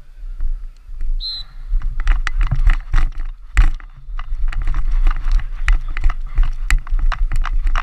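Helmet-mounted camera jostled as a lacrosse player moves: a steady low wind rumble with a quick run of knocks and rattles from footfalls and gear. A brief high-pitched whistle-like tone sounds about a second in.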